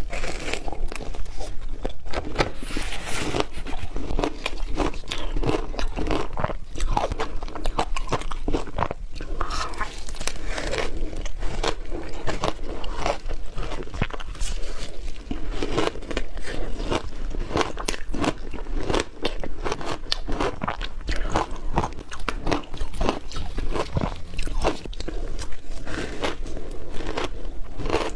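Ice being bitten by teeth, a continuous run of sharp, crisp crunches coming several times a second at an uneven pace.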